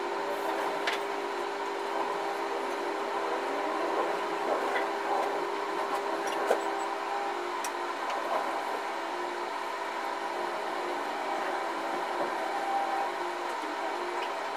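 Long-reach demolition excavator running with a steady droning whine, while its crusher jaws work the top of a concrete building; a few short sharp cracks and clinks of breaking concrete and falling debris.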